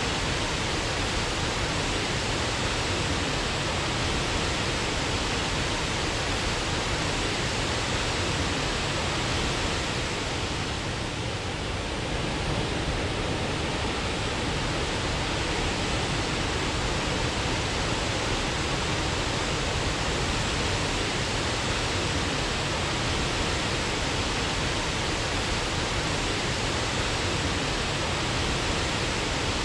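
Waterfall: a steady, even rush of falling water, briefly a little softer about eleven seconds in.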